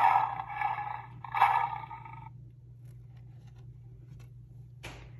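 Recorded lion roar sound effect: two roars back to back, over the first two seconds or so.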